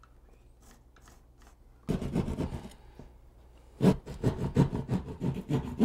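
A hand drywall saw rasping back and forth through gypsum wallboard, enlarging the opening for a switch box. The faint scratching of a pencil tracing the box outline comes first. The sawing starts about two seconds in and settles into quick strokes, about five a second, from about four seconds in.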